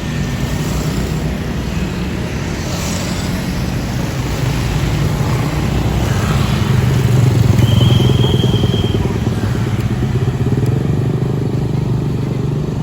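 A heavy vehicle's diesel engine running close by, growing louder to a peak about eight seconds in and then easing off, as a large tour bus moves past. A brief high-pitched steady tone sounds near the loudest point.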